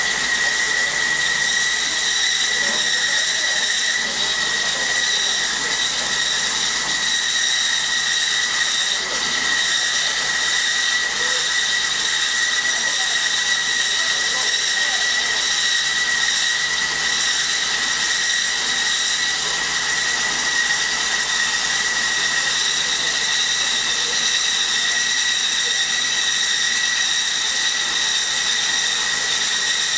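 Diamond wire saw running steadily as it cuts through copper melting-furnace residue: a steady high-pitched whine over an even hiss.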